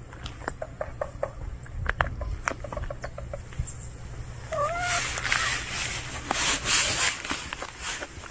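A cat gives one short meow about halfway through, followed by a few seconds of rustling noise.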